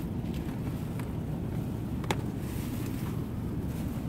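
A steady low rumble, with a few faint rustles and clicks of plastic bags being handled. The sharpest click comes about two seconds in.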